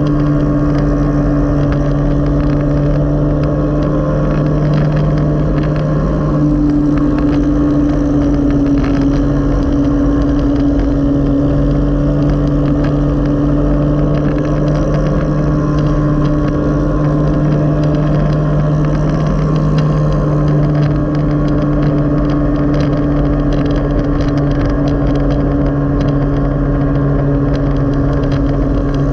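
Motorcycle engine of a tricycle with a sidecar running steadily at cruising speed, its pitch shifting slightly a few times as the throttle changes.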